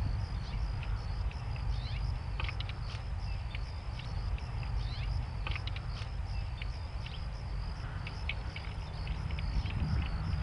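Outdoor ambience: a low wind rumble on the microphone under a steady high insect trill, with a few short bird chirps scattered through.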